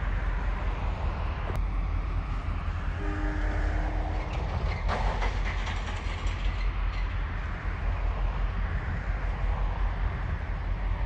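Diesel locomotives rumbling at low speed as they approach as light engines. A short, faint horn-like tone sounds about three seconds in, and a harsh hiss lasting about two seconds follows around five seconds in.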